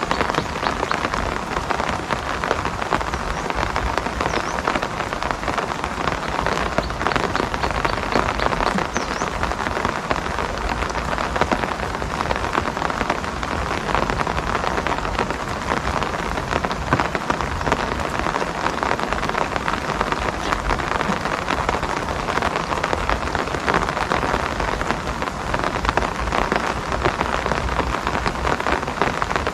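Steady rain falling, a dense, even patter of raindrops.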